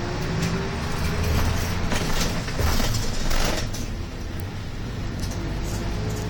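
City bus engine running and road noise heard from inside the cabin as the bus drives along, the engine pitch rising near the end as it accelerates. A louder rush of road noise swells between about two and four seconds in.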